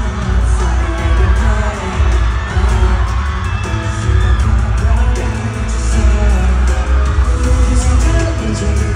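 Live K-pop concert music over an arena sound system: a heavy bass beat under sung group vocals, loud and continuous.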